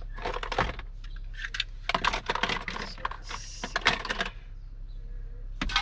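Small items clattering and clicking as they are handled in a plastic storage bin, with bursts of rustling between the clicks.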